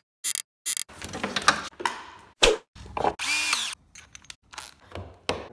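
A rapid string of short drill bursts, drilling pocket holes for joining 2x4s. The drill whirs up and winds down, each burst chopped off abruptly by quick edits.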